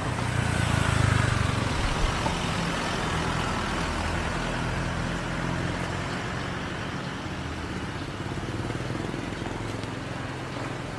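Street traffic: engines of motor vehicles running over a steady road hum, loudest as one passes close about a second in.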